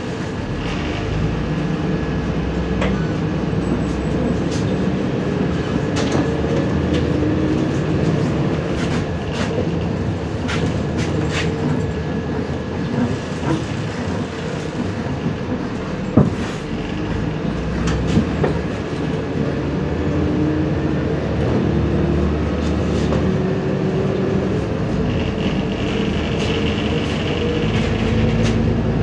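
Inside a moving MAZ 105.065 articulated city bus: the engine running steadily under road noise, with the body and fittings rattling and knocking over the road surface, one sharper knock about halfway through. Near the end the engine note rises as the bus speeds up.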